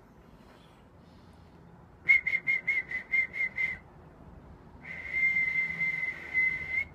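A man whistling a high, clear note into a telephone held at his mouth. First comes a quick run of about eight short whistles, then after a brief pause one long held whistle.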